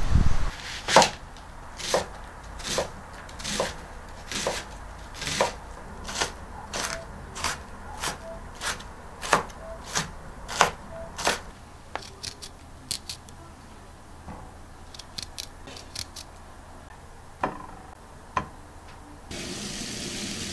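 Kitchen knife cutting through vegetables onto a cutting board, a little under one stroke a second and getting quicker, then a few light quick taps and two more cuts. A steady hiss comes in near the end.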